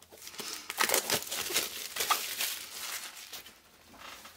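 Thin plastic shrink-wrap being peeled and torn off a hardback sketchbook: a dense run of crinkling and crackling, loudest through the first three seconds and dying away near the end.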